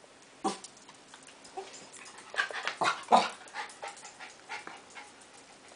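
A small terrier whining and crying in a string of short yips and whimpers, loudest in a cluster a little before the midpoint. It is having a tantrum because it wants to be let outside.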